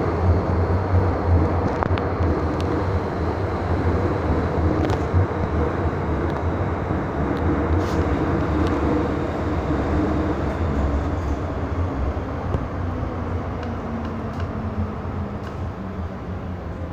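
MTR M-Train subway car heard from inside the cabin while running between stations: a steady low rumble of wheels and running gear on the track, with occasional light clicks. It grows gradually quieter over the stretch.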